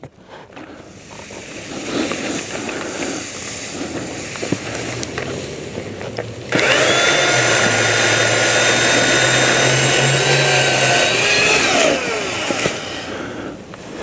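A chainsaw starts suddenly about six and a half seconds in and runs at a steady high speed for about five seconds, the pitch lifting slightly, then winds down with a falling pitch as the throttle is let go. Before that there are only quieter, uneven handling noises.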